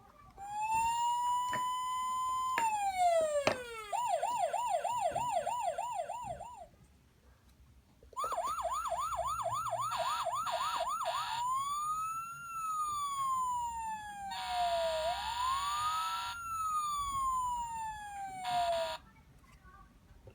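Recorded emergency-vehicle siren sounds from a children's sound puzzle's small speaker: a wail that rises and then drops, a fast warbling yelp, a short pause, another fast warble, then slow rising and falling wails that stop abruptly near the end.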